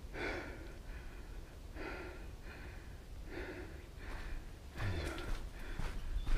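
A hiker breathing hard and loudly on a climb, one heavy breath roughly every second and a half.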